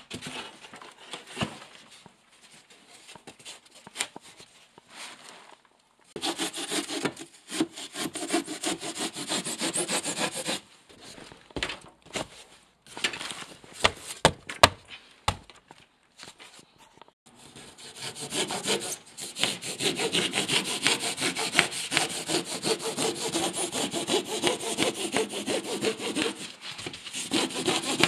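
Hand saw sawing with quick back-and-forth strokes: a burst about six seconds in, a short one near the middle, then steady sawing for the last ten seconds. Softer rubbing and knocking come before the first burst.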